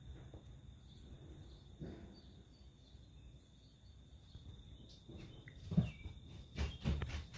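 Phone being carried and handled indoors: a few soft knocks and thumps in the last two seconds, over a faint steady high-pitched tone.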